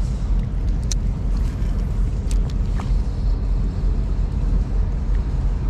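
Steady low rumble of wind buffeting the microphone, with a few faint clicks, probably from the spinning reel being worked.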